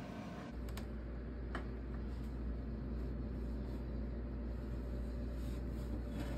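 Steady low hum of a running oven, with a few light clicks and knocks as a metal baking pan is set inside on the tray.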